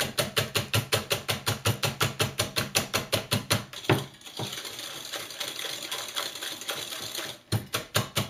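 Wire whisk beating eggs and sugar in a glass bowl, the wires clicking rapidly against the glass at about six strokes a second. For a few seconds in the middle the whisking goes softer and smoother, then the quick clicking returns near the end.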